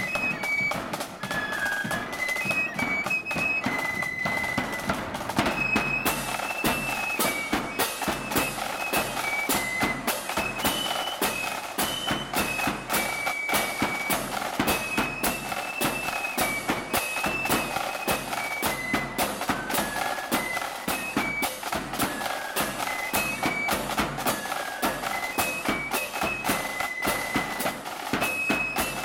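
Blood-and-thunder marching flute band playing a march: a high flute melody over bass drum, drums and clashed hand cymbals keeping a steady beat. The drumming gets heavier about six seconds in.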